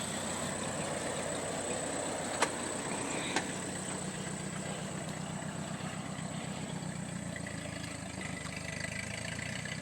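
Ford 8N tractor's four-cylinder engine idling steadily, with two short sharp clicks about a second apart around two and a half seconds in.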